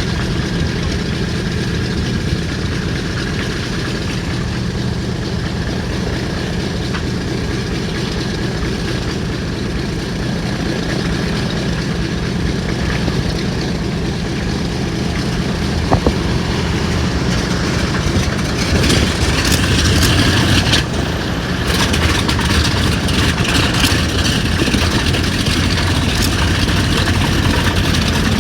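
Douglas DC-3's Pratt & Whitney R-1830 fourteen-cylinder radial engine running steadily at idle after start. A single click sounds about halfway through, and the engine gets louder and harsher for the last third.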